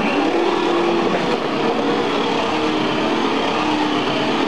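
Toy remote-control car's small electric motor running flat out with a steady whine as the car spins donuts; it starts suddenly.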